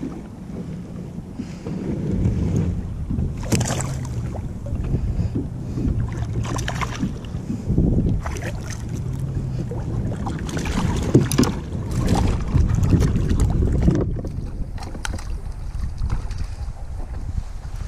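Wind buffeting the microphone and choppy water slapping against a kayak hull, with scattered clicks and knocks throughout.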